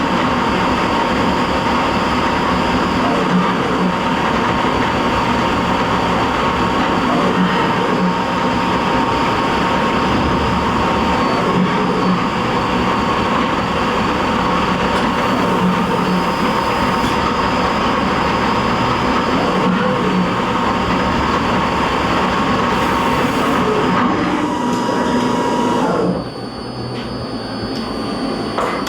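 CNC vertical milling machine cutting Delrin (acetal) plastic: the spindle and cutter run steadily with a steady whine over a dense cutting noise. About three seconds before the end the noise drops off abruptly to a quieter hum as the cut stops.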